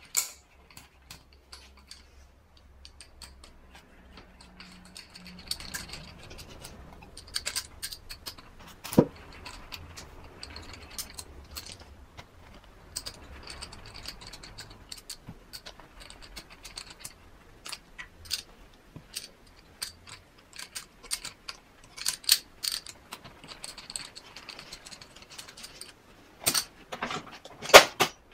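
Small metal parts and hand tools clicking, clinking and scraping as the idle speed control valve is worked off a Toyota 4A-GE throttle body. Scattered light clicks, with a few louder knocks about nine seconds in and again near the end.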